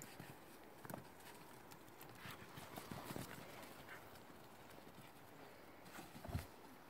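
Faint scattered footsteps and scuffs on a brick garden path, with one louder dull thump near the end.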